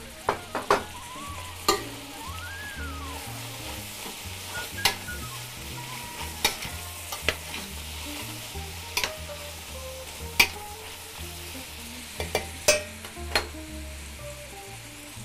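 Seared beef and freshly added onions sizzling in a stainless steel pot, with sharp knocks of a spoon against the pot now and then as they are stirred.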